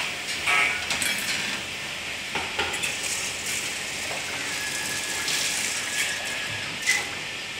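Spoon clinking in a glass and scattered clatter of metal utensils and dishes, a few sharp clinks over steady background kitchen noise.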